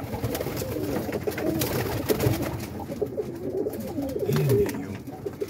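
Several domestic pigeons cooing together in a loft, low overlapping coos with a few sharp clicks among them.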